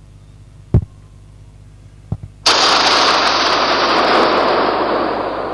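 Animal-detection system's audio warning, played through a speaker once the bear is detected: a sudden loud, harsh noise sound that starts about two and a half seconds in and holds, slowly fading near the end. A sharp click and two lighter clicks come before it.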